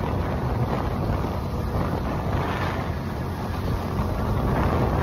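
Wind buffeting a phone microphone on a moving motorcycle, a steady rush with the bike's engine running low underneath.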